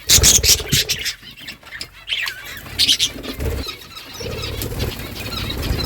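A flock of budgerigars chirping and chattering over one another in quick, overlapping calls.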